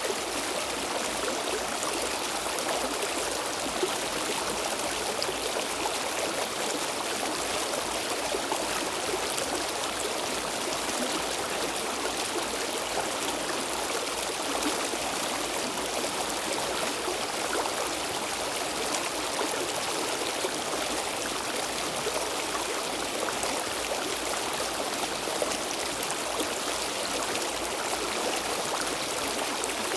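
Stream water flowing and splashing over stones, a steady even rush.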